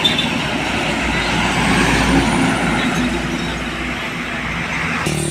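A heavy truck driving past: engine and tyre noise swelling to its loudest about two seconds in, then easing off.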